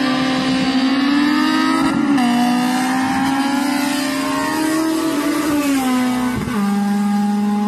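Honda K-series engines in two drag cars, one a Civic hatchback, accelerating flat out side by side. The engine pitch climbs and falls back at upshifts about two seconds in and again around five and a half to six and a half seconds in, then holds a steady drone near the end.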